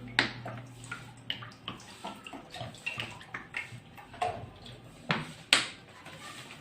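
Kitchen handling noises: scattered clicks and knocks of cookware being moved on a stovetop, with a few louder knocks about five seconds in.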